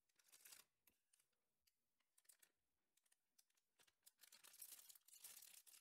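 Disposable plastic piping bag crinkling and rustling in the hand as royal icing is loaded into it with a silicone spatula: short crackly bursts, loudest about half a second in and over the last second and a half.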